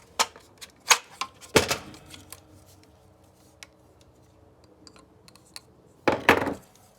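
Sharp clicks and knocks of hard plastic parts and a tool being handled while a hand-held vacuum is taken apart: three in the first two seconds, a few faint ticks after, and a short cluster of knocks about six seconds in.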